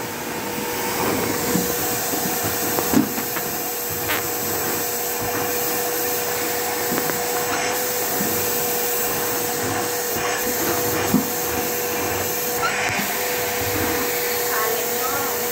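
Canister vacuum cleaner running steadily with a constant motor whine, its floor nozzle pushed over a wooden floor. Two short knocks, about three seconds in and near eleven seconds, stand out above the hum.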